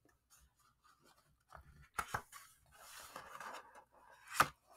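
A paper page of a picture book being turned by hand: two light taps, a soft papery rustle as the page sweeps over, and a louder tap near the end.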